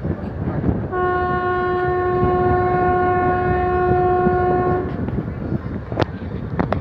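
Train horn sounding one long steady blast of about four seconds, heard from a coach of the moving train over the constant rumble of the wheels on the rails. A few sharp clacks follow near the end.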